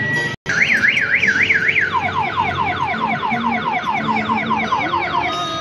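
Electronic siren sound effect from the battery ride-on toy car's speaker. It starts as a fast up-and-down warble about four times a second, then switches to quick falling yelps at about the same rate, stopping shortly before the end.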